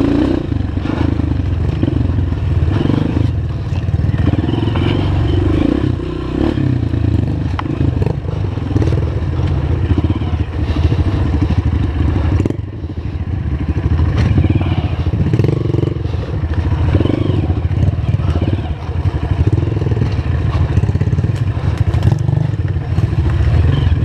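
Honda CRF230 dirt bike's single-cylinder four-stroke engine running at low trail speed, with the clatter and knocks of the bike over a rough, rutted trail; the engine eases off briefly about halfway through.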